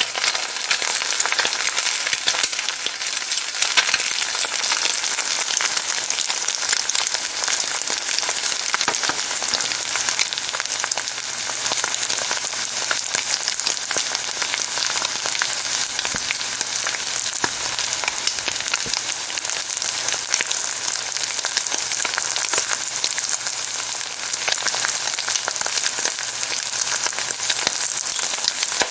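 An egg frying in a pan of hot fat: a steady sizzle with constant fine crackling and popping.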